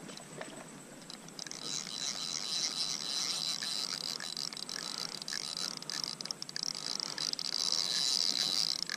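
Ultralight spinning reel being cranked to bring in a hooked fish, its gears giving a rapid, high-pitched ticking whir. The whir starts about a second and a half in, grows louder toward the end, and stops at the end.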